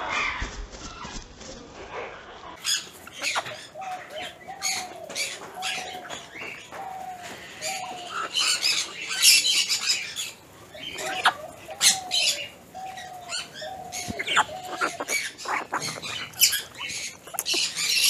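Parrots in an aviary calling, with high chirps and squawks and wings flapping. A short call repeats about every two-thirds of a second from a few seconds in until near the end.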